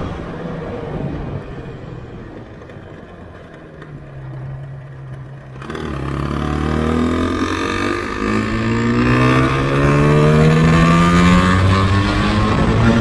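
Yamaha RZV500R's two-stroke V4 engine running off the throttle with its note falling, then, about halfway through, opened up and accelerating hard with a long rising note that drops briefly near the end, as at a gear change, before climbing again.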